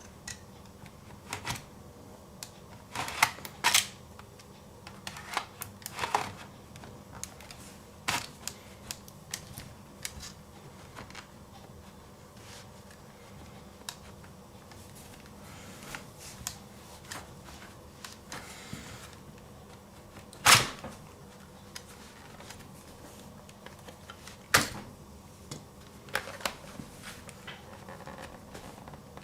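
Scattered clicks and knocks of small plastic and metal laptop parts being handled, as a hard drive in a caddy is fitted into a laptop's optical-drive bay, with two sharper knocks in the second half.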